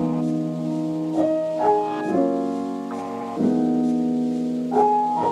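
Background piano music: slow sustained notes and chords that change every second or so.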